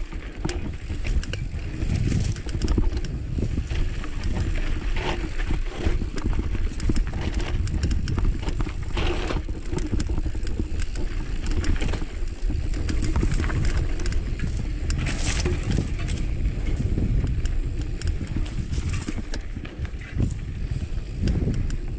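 Mountain bike riding over dry dirt singletrack: knobby tyres crunching over dirt and loose rocks and the bike rattling in many small clicks, over a steady low rumble.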